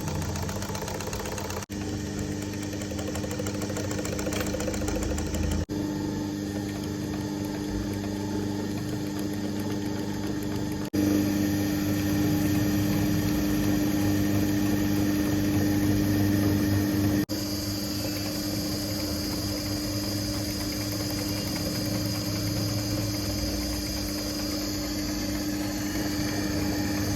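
Sewing machine running steadily, with a steady hum. It breaks off for an instant a few times and is louder for a stretch in the middle.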